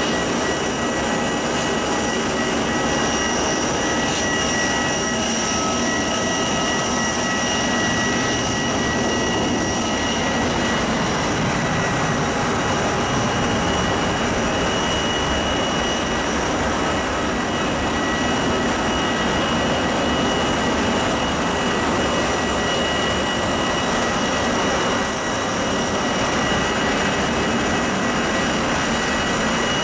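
Steady airport apron noise: a continuous roar with several high, steady whining tones from aircraft turbines and ground equipment running near the parked airliner.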